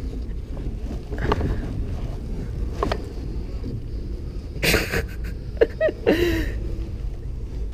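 Plastic sit-on-top kayak moving through shallow water and sticks, with a steady low rumble, scattered knocks, two short scraping rushes in the second half and a few brief squeaks.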